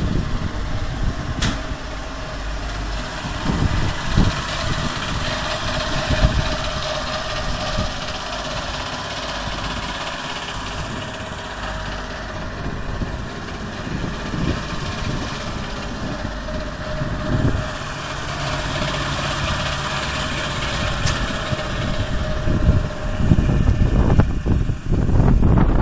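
Steady machinery running at a dissolved air flotation wastewater unit, its pumps humming over churning aerated water in the flotation tank. Gusts of wind rumble on the microphone, strongest near the start and end.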